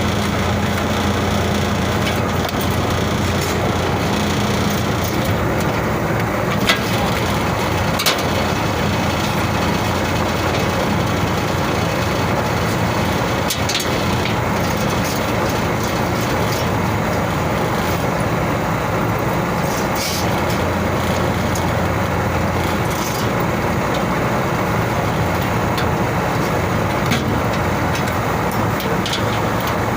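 Steady machinery noise with a low hum that drops away about two-thirds of the way through, and a few sharp metallic clicks from tool work.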